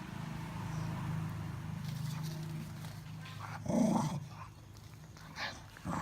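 Beagle growling low and steadily while eating, then a short, louder vocal sound just before four seconds in, followed by two brief quieter ones.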